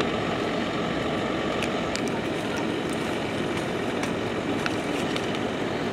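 Steady drone of a fire truck's engine running to drive the pump, with a few faint scattered clicks over it.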